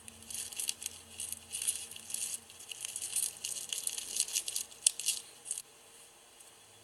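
Small plastic slime charms rattling and clicking against each other in quick, dense clatters for about five and a half seconds, then stopping suddenly.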